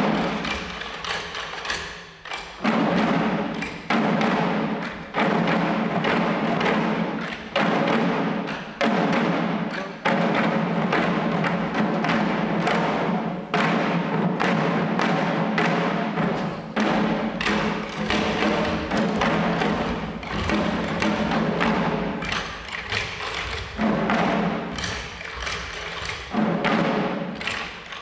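Shishi-odori dancers beating the small taiko drums slung at their chests, heavy strokes in unison about every second with lighter strokes and stick clicks between.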